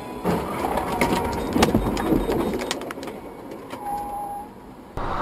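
A car and a box truck colliding on the road ahead, picked up by a dashcam: a sudden crash followed by a run of knocks and clatter that dies down after about three seconds.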